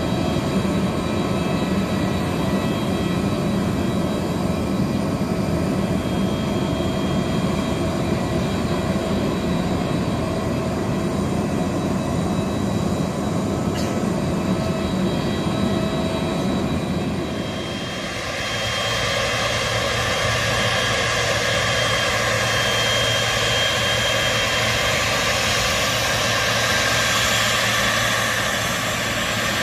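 Steady jet aircraft noise on an airport apron, a hum with several held whining tones. About 18 seconds in it changes abruptly to the louder, hissier sound of a Boeing 777's jet engines as it taxis, over a steady low tone.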